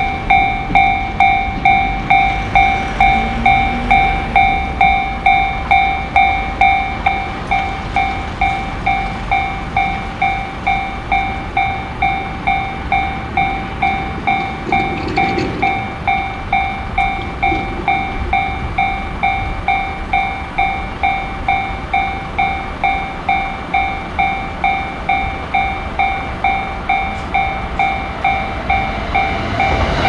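Japanese railway crossing's electronic warning bell ringing its steady 'kan-kan' at about two strikes a second, signalling an approaching train. It drops a little in volume after about seven seconds. A passing train starts to be heard right at the end.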